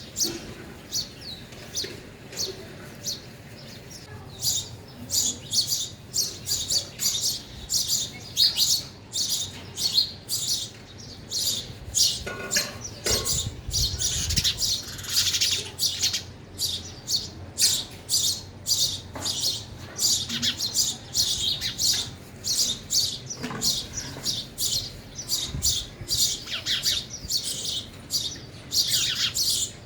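Sparrows chirping continuously, many short high chirps in quick overlapping succession. A few dull low thuds come about halfway through.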